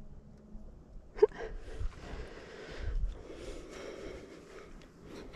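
A person breathing and sniffing close to the microphone, with a sharp click about a second in.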